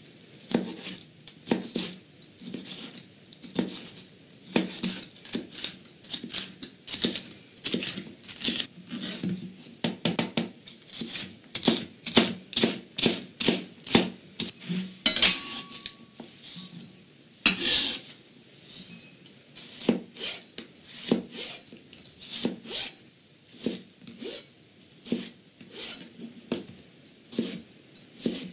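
Chef's knife chopping vegetables on a plastic cutting board: a long run of irregular knocks of the blade striking the board, coming fastest through the middle.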